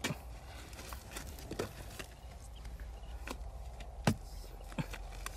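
Long-handled digging tool striking and prying into hard, dry cracked mud: a series of separate thuds, the loudest about four seconds in.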